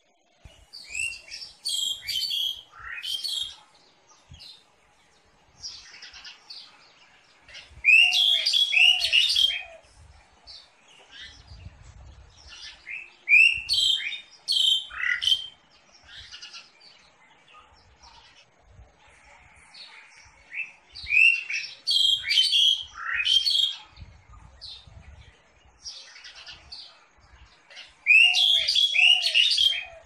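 A songbird singing loud phrases of quick, downward-slurred whistled notes, each phrase lasting a second or two, repeated about every five to seven seconds.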